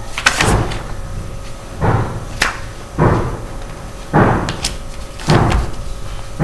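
Sheet of paper being folded and its creases pressed down hard on a table, giving a thump about once a second with crisp paper crackles.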